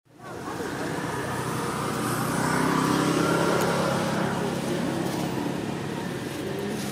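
A motor vehicle's engine running and passing, a steady hum that grows louder toward the middle and then eases off a little.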